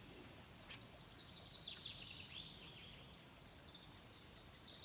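Faint birdsong: quick, high chirps and trills, with a single sharp click a little under a second in.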